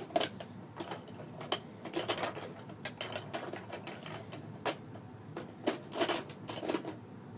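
Irregular plastic clicks and rattles of a toy Nerf blaster being handled and worked, with a few sharper clicks scattered through.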